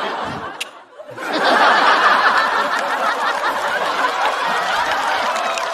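Studio audience laughing at a joke, swelling into loud, sustained crowd laughter about a second in.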